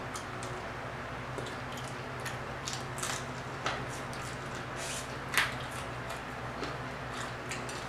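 Soft wet mouth sounds of eating fried croaker off the bone by hand: scattered lip smacks and small chewing clicks, the loudest about five seconds in, over a steady low hum.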